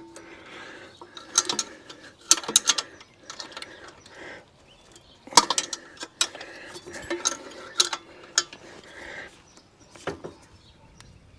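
Socket ratchet clicking in short irregular bursts while a bolt is tightened, with metallic clinks of the tool against the bike.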